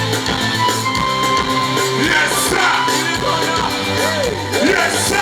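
Live band music with singing and a steady beat, played over a loud PA system.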